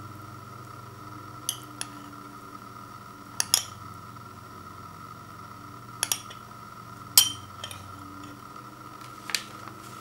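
Metal spoon clinking against a ceramic bowl while stirring cooked rice: about nine scattered sharp clinks, the loudest about seven seconds in.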